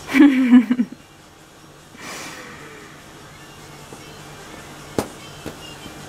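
A woman's voice briefly at the start, then quiet handling of small hardened resin pieces with two light clicks about half a second apart.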